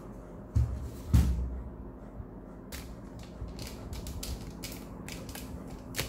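Handling noise on a desk: two dull knocks about half a second apart in the first second and a half, then a string of light, irregular clicks.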